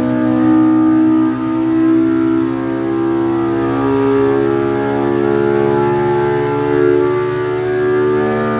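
Polaris RZR Pro R's 2.0-litre four-cylinder engine, fitted with an EVO header and EVO muffler, running under load on an engine dyno. Its pitch climbs steadily as the revs sweep from about 7,200 to 8,700 rpm during a power run.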